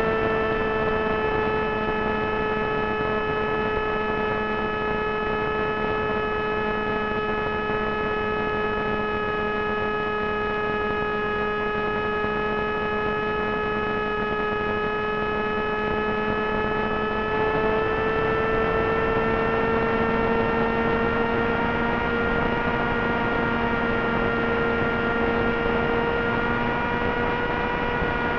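Multistar Elite 2204 brushless motor spinning a 6x3 Gemfan propeller on a Wing Wing Z-84 flying wing in flight: a steady whine. Its pitch sags slightly, then rises again a little past halfway.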